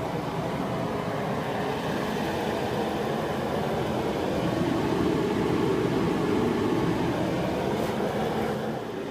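Newly lit portable forced-air heater running with a steady rushing noise, growing slightly louder in the middle.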